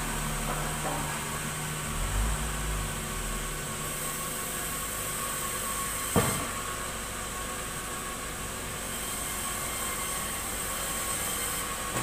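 Large sawmill band saw running steadily with a constant high whine. A low motor hum dies away within the first four seconds, and there is a single sharp knock about six seconds in.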